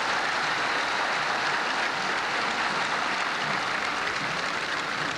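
A large crowd applauding steadily, a dense even clatter of many hands clapping.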